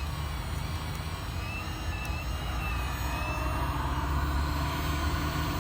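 1/14-scale RC hydraulic excavator running: a steady low hum with a thin, slightly wavering whine over it, getting louder about halfway through as it works.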